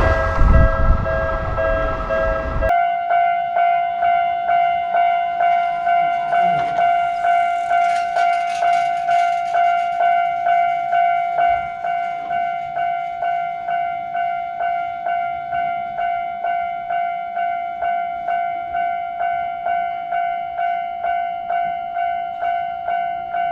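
A train running past, which cuts off suddenly about three seconds in. It gives way to a Japanese level crossing's electronic warning bell ringing steadily, just under two strikes a second.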